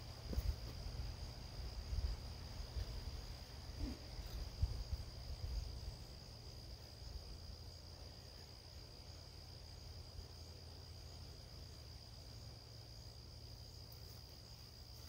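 Crickets trilling steadily at a single high pitch, faint. A low rumble with a few soft bumps sits under it and dies away after the first few seconds.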